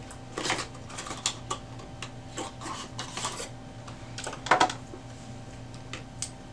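Ink cartridges and their boxes and plastic packaging being handled: irregular light clicks, taps and crinkles, the loudest a sharp rustle about four and a half seconds in, over a steady low hum.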